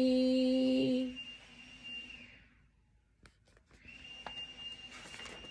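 A woman's sung note held for about a second and fading away, then a short near-quiet with a few soft clicks. From about four seconds in, the rustle and clicks of a picture book being handled and its pages turned, over a faint steady high-pitched tone.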